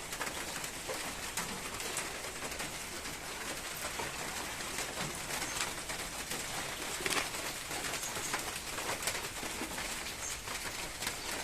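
Steady rain patter with scattered drips, and a dove cooing.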